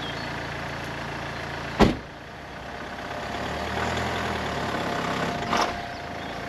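Car engine idling, with a car door slammed shut about two seconds in. After that a low engine hum swells and fades, with a faint steady whine, and there is a lighter knock near the end.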